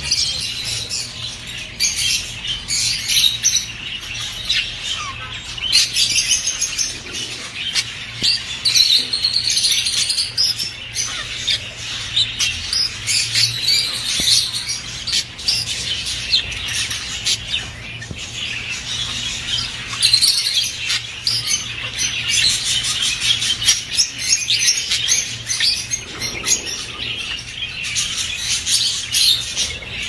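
A group of budgerigars chattering and warbling, a dense, unbroken stream of quick chirps and twitters. This is the courting warble of male budgies calling to females, the kind of chorus played to bring budgies into breeding condition.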